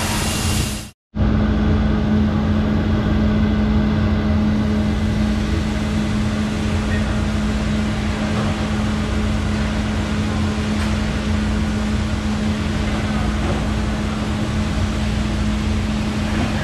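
Cylindrical grinder running on a steel shaft under flood coolant: a steady machine hum with the noise of the coolant spray and grinding wheel. The sound cuts out completely for an instant about a second in, then the grinder's steady running hum carries on.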